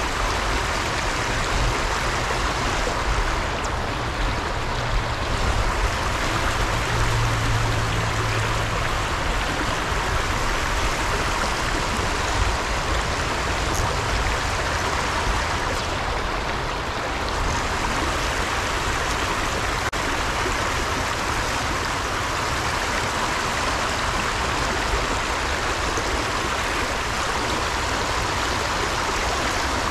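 Stream water running in a steady, unbroken rush.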